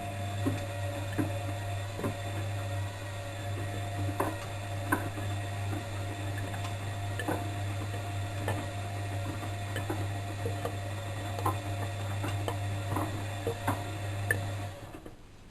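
Bosch WFM3010 washing machine's drum motor running with a steady low hum while the laundry tumbles with irregular clicks and knocks. The motor stops near the end, a pause in the wash cycle's tumbling.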